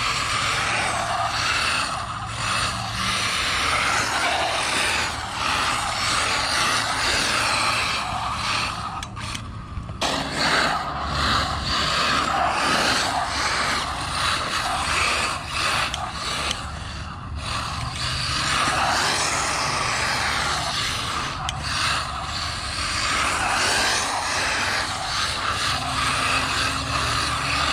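1/8-scale electric buggy with a 1900 kV brushless motor on a Spektrum 130 A ESC, driving on concrete: motor and drivetrain whine with tyre noise, getting louder and quieter as it speeds up and slows down.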